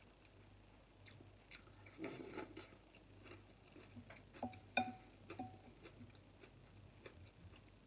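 Quiet eating sounds: chewing, with a short slurp about two seconds in, and small clicks of wooden chopsticks and spoon against a porcelain bowl, the sharpest just before five seconds with a brief ring.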